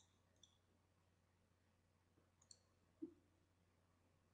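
Near silence with a few faint short clicks, two near the start and one about two and a half seconds in, and a soft low knock about three seconds in.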